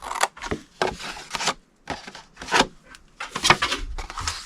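Scissors cutting and trimming scored cardstock: a series of irregular snips with the paper rustling between them.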